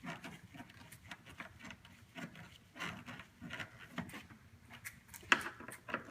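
Irregular small clicks, taps and rustles of hands working plastic grille parts and their fasteners on a car's front end, with one sharper click a little past five seconds in.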